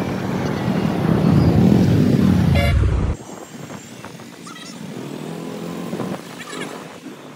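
Riding a motorbike in road traffic: engine and wind rumble on the microphone, with a brief horn toot. About three seconds in, the sound cuts abruptly to quieter street traffic.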